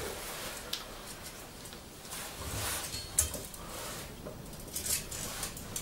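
Handling noises from measuring a steel rod with a tape measure: short rustles and scrapes, with a sharp click about three seconds in.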